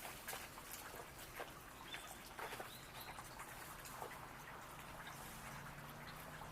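Scattered short bird chirps, several a second at times, over a faint steady hiss.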